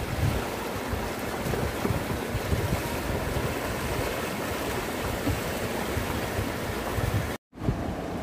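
Swift, muddy river rushing steadily over rocks, with wind buffeting the microphone in low rumbles. The sound cuts out for a moment near the end.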